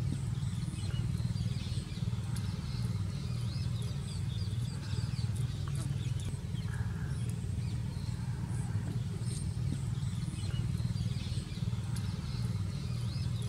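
Steady low hum, with small birds chirping over it and a few faint clicks.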